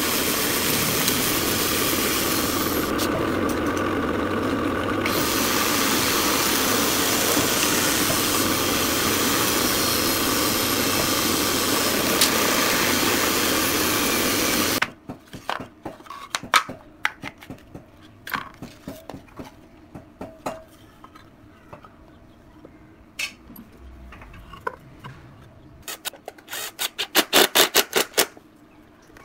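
A drill press runs steadily, boring into a pine board with a Forstner bit, and cuts off suddenly about halfway. Scattered clicks and knocks of wood and screws being handled follow. Near the end a Makita cordless impact driver sets in with fast rattling hammer blows as it drives a screw into the wooden box.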